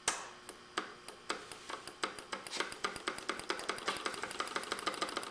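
Hand-built solenoid engine starting up on 12 volts, clicking once per stroke. The clicks come slowly at first and quicken over a few seconds into a fast, even ticking.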